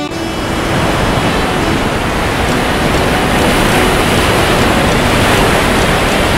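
Ocean surf: a loud, even rushing of waves that cuts in suddenly and swells a little toward the middle.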